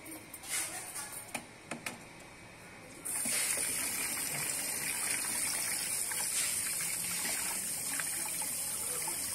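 A few light clicks and knocks as a metal mesh strainer is handled in a bowl in a sink. About three seconds in, a tap is turned on and water runs steadily into the bowl, splashing as a small piece of jewellery is rinsed under it.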